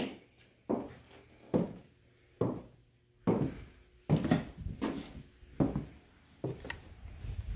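Footsteps on wooden floorboards: a slow, even walk of about one step a second, turning busier and less even about three seconds in.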